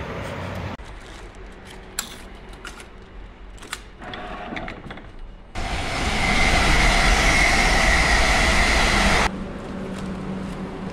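Train noise across a run of short cut clips: a quieter rumble with a few sharp clicks, then, from about halfway until near the end, a louder steady rumble with a high whine over it.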